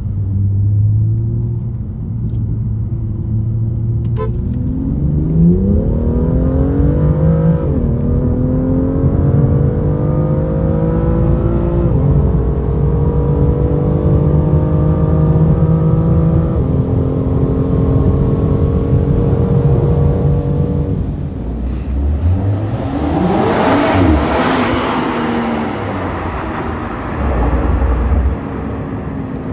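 BMW N55 turbocharged straight-six, first running steadily, then accelerating hard through the gears of an automatic gearbox. About five seconds in the engine pitch starts to climb, and it drops back at each of four upshifts. About three-quarters of the way through, a loud rushing noise swells and fades.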